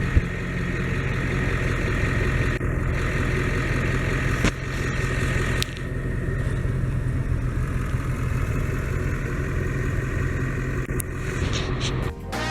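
Steady engine and road noise of a car, with a constant low hum, broken off suddenly by a few short breaks.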